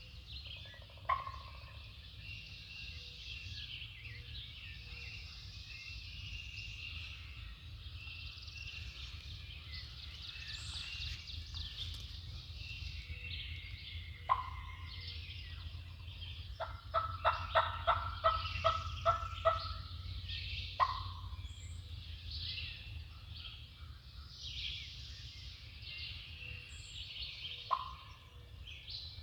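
Wild turkeys gobbling about four times, each gobble sharp and falling away, over a steady chorus of songbirds. Midway there is a run of about eight quick, evenly spaced calls, and a low steady rumble lies underneath.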